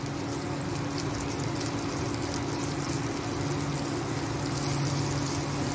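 Sliced onion, capsicum, carrot and cabbage sizzling in hot oil in a nonstick kadhai as they are stirred with a spatula: a steady hiss, with a steady low hum underneath.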